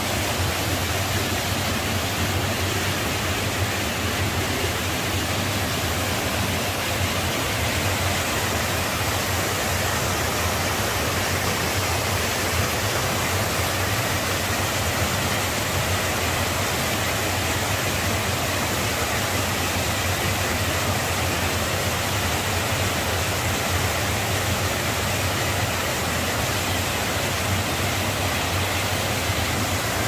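Mountain stream rushing in small cascades over and between boulders: a steady, even rush of water.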